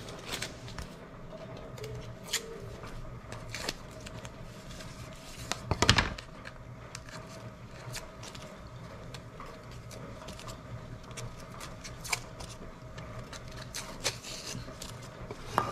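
Blue painter's tape being peeled off cut pieces, in scattered short crackles and rips, with the pieces handled and set on the workbench and one louder knock about six seconds in. A steady low hum runs underneath.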